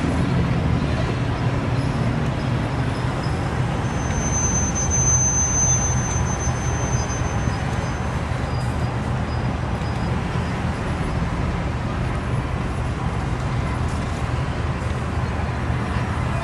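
Diesel freight locomotive's engine running with a steady low rumble.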